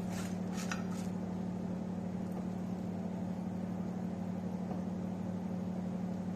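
Steady low electric hum, like a motor or fan running, with a few light scraping clinks of utensils in the first second.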